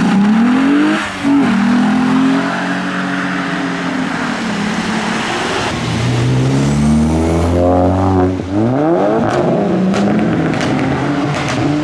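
Modified cars pulling out of a junction and accelerating away one after another. A Mk3 Volkswagen Golf's engine revs up, and its pitch drops at a gear change about a second in. Then a Volkswagen Caddy van accelerates with a lower, fuller engine note, its pitch climbing, dropping at a gear change, and climbing again.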